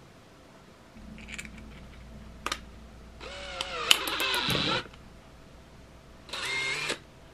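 DeWalt 18V XR brushless drill/driver motor run for about a second and a half while the keyless chuck is held, tightening it on a screw extractor bit: pitch falls and the chuck clicks as it locks. A second short burst of the motor follows near the end.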